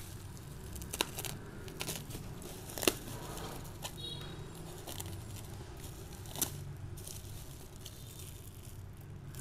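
Bubble wrap and plastic wrapping crinkling and rustling as wrapped kitchen knives are handled and drawn out of a cardboard box, with a few sharp clicks along the way.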